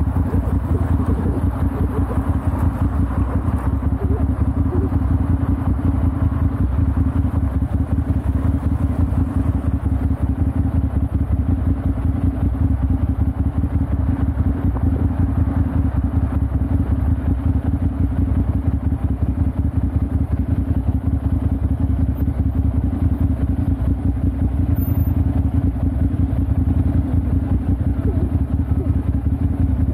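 Ducati Monster 796's air-cooled L-twin engine idling steadily at a standstill, with an even low pulse.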